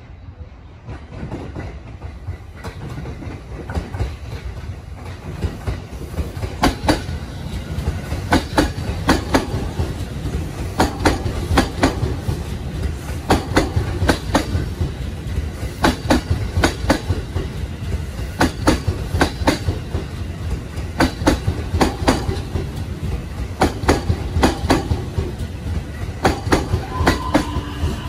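JR East 255 series electric train passing close by: a low rumble that grows as it approaches, then a steady clickety-clack of its wheels over the rail joints, the clicks coming in pairs about once a second. A faint whine creeps in near the end.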